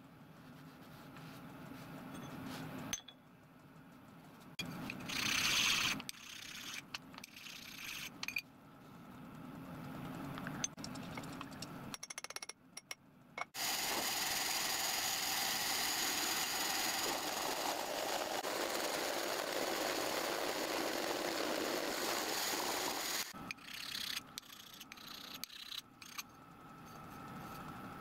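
Milling machine end mill cutting a slot into a small metal block: a steady, even cutting noise starts about halfway through and lasts about ten seconds. Before and after it come scattered clinks and the rustle of the block being handled and wiped.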